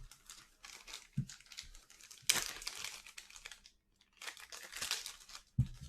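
Crinkling and rustling as a freshly opened pack of baseball cards is handled, in two longer stretches about two and four seconds in, with a couple of soft thumps.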